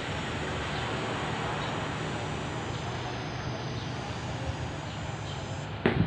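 Diesel locomotive of an approaching train running in the distance: a steady low drone under broad rumbling noise. A sharp, loud blast comes right at the end, the first of the train's horn toots.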